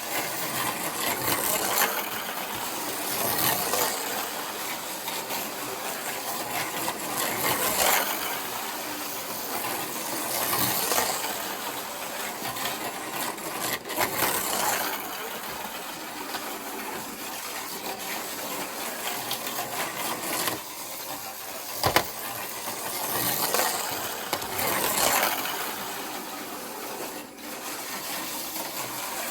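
Micro slot cars running on a plastic slot track, their small electric motors whirring and the cars rattling in the slot. The noise swells and fades every few seconds as the cars come past, with one sharp click near the end.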